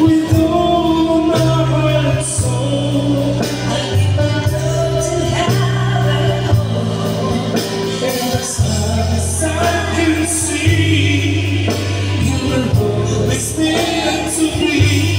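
Two singers, a man and a woman, singing into microphones over an amplified backing track with a steady bass line, heard through the venue's speakers.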